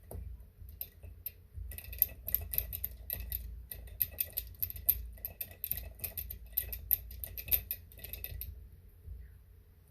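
Fast light clicks and ticks from a small screwdriver working a tiny screw into a laptop's bottom cover, starting about two seconds in and stopping near the end.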